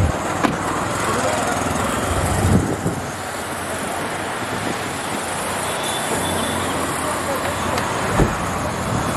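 Roadside traffic noise: a steady hum of vehicles and idling engines, with a deep engine rumble that fades out about two and a half seconds in and a few short knocks.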